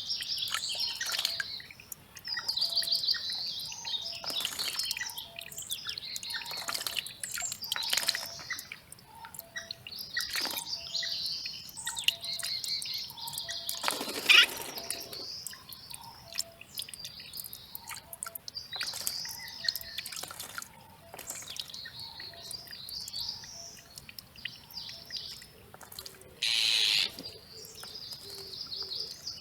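Wild songbirds chirping and singing in quick high phrases, with a short low note repeating about once a second behind them. One loud sharp call comes about halfway through, and a brief harsh, hissing burst near the end.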